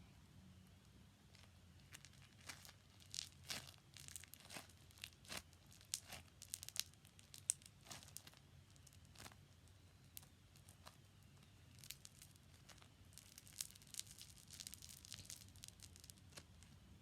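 Crackle foam slime being squeezed and worked by hand for ASMR, giving faint, scattered sharp crackles and pops. They come in a busy stretch a couple of seconds in and again in a second cluster about three quarters of the way through.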